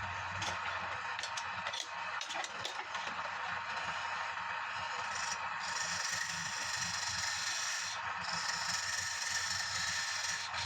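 Wood lathe turning a palm-wood bowl blank, the turning tool scraping steadily against the spinning wood over the low hum of the lathe, with a run of small clicks and ticks in the first few seconds.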